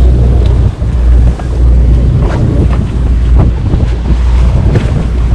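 Sportfishing boat underway: a steady low engine drone, with wind buffeting the microphone and water rushing past the hull.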